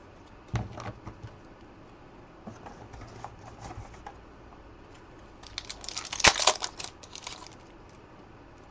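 Trading cards handled with a few light taps and rustles, then a trading-card pack wrapper torn open and crinkled for about two seconds from just past halfway, with one sharp snap in the middle.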